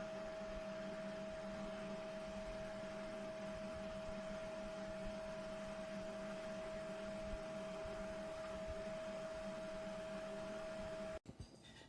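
Small USB desk air-cooler fan running with a steady hum and a clear whine over a haze of airflow, which cuts off suddenly near the end.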